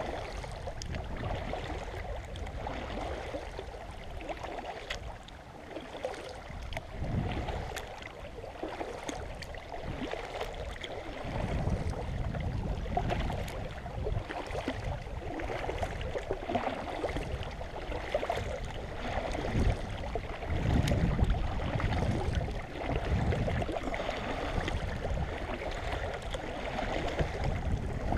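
Double-bladed kayak paddle stroking through river water: blades dipping and pulling, splashing and dripping, with water running along the moving hull. A low rumble comes and goes from about a third of the way in.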